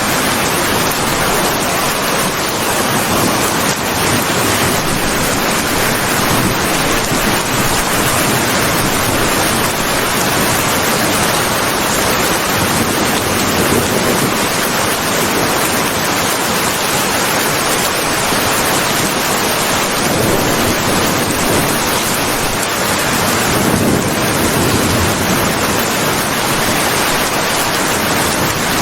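Steady rain falling, a dense even hiss that swells slightly now and then, with no thunder.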